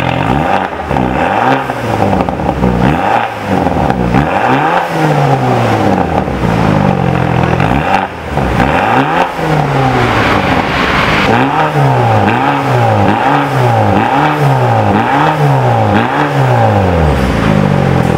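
BMW 220i (F22) 2.0-litre turbocharged four-cylinder revved while standing still, heard at the tailpipes of a stainless-steel cat-back exhaust. First come several longer revs rising and falling back, then, from about two-thirds of the way in, a quick run of short throttle blips about one a second.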